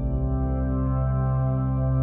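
Slow ambient background music of long held chords.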